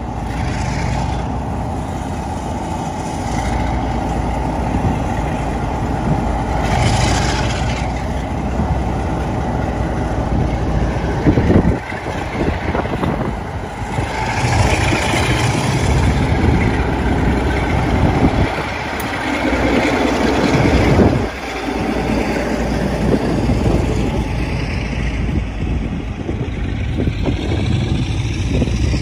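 Class 47 diesel-electric locomotive's Sulzer twelve-cylinder engine running under power as it pulls away with a train, passing close by. Its loudness swells and dips several times, and the coaches roll past near the end.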